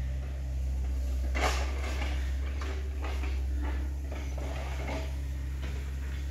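Irregular footsteps on churned mud and broken branches, starting about a second and a half in, over a steady low drone.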